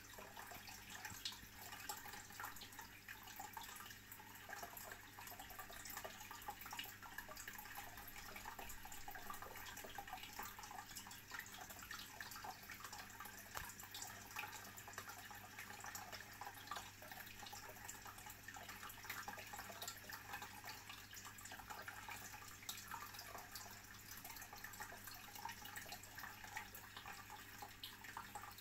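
Aquarium water circulating and bubbling: a faint, steady trickle of water with many small crackles and drips, over a low steady hum.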